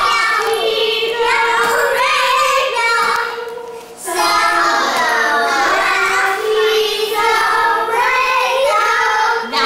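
Young children's voices singing a song together, with a short break about four seconds in.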